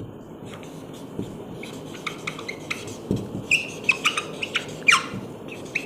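Marker pen squeaking and tapping in short strokes on a whiteboard as a word is written.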